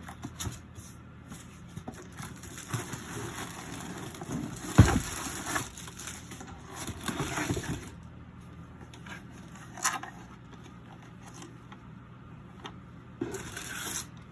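Packaging being handled during unboxing: intermittent rustling and crinkling, with a sharp knock about five seconds in and a click near ten seconds.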